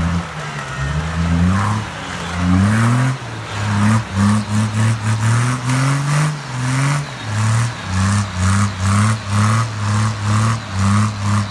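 Nissan Patrol's engine revved in short repeated bursts while the 4x4 churns through deep mud, settling into about two revs a second from around four seconds in.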